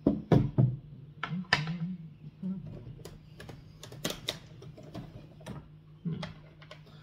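Irregular clicks, knocks and clatter of small tools handled on a wooden table, with drill bits rattling in a plastic bit case, the loudest knocks in the first second and around four seconds in. A low steady hum runs underneath.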